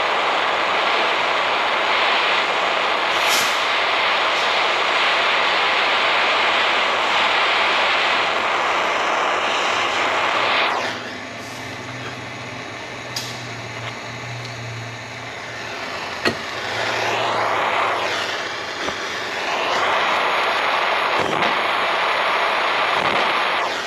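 Handheld gas torch burning with a steady loud hiss while it heats a rust-seized wheel speed sensor nut. The hiss drops away about eleven seconds in for some five seconds, a single sharp click comes near sixteen seconds, and the flame sound returns.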